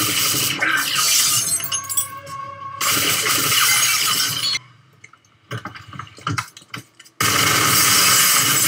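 Sustained automatic gunfire with dishes and glass shattering as the rounds strike. The firing lets up for a couple of seconds about halfway, leaving a few scattered impacts, then another long burst starts about seven seconds in.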